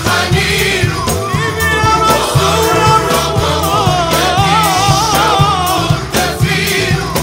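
A mixed choir and male soloist singing an Islamic devotional song (ibtihal), with frame drums and a tambourine keeping a steady beat. A solo voice sings an ornamented, wavering line about halfway through.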